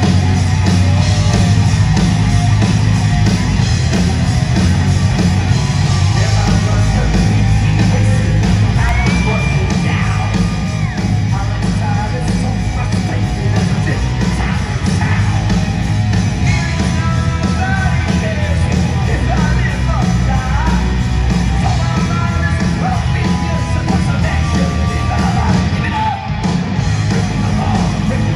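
Heavy metal band playing live and loud: distorted electric guitars, bass and drums, with a male lead singer's voice over the top, recorded from the audience in a large hall.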